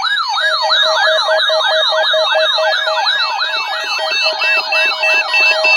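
Several weather radio receivers sounding their alert alarms at once for the required weekly test: a fast-repeating sweeping siren tone overlapped by quick pulsed beeps from other units, a second beep joining about two seconds in.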